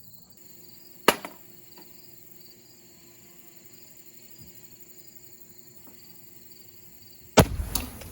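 An aerosol hairspray can heating in a toaster oven: a sharp crack about a second in, then near the end a loud bang as the can bursts, followed by a rush of noise and smaller knocks.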